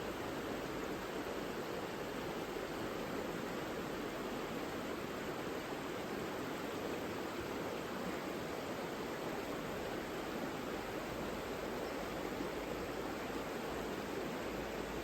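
The Savica river flowing: a steady, even rush of water.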